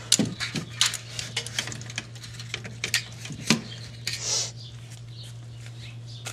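Irregular clicks and light knocks of fishing rods and reels being handled, many in the first three and a half seconds and fewer after, over a steady low hum.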